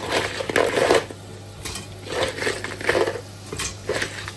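Crab pieces going into a metal pressure cooker and being stirred in: a run of clattering knocks against the pot in about six bursts, loudest in the first second.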